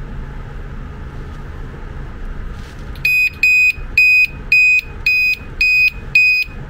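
LED reversing-light bulb with a built-in reverse beeper, powered from a battery, beeping loudly: a high-pitched electronic tone pulsing about twice a second. The beeping starts about halfway in.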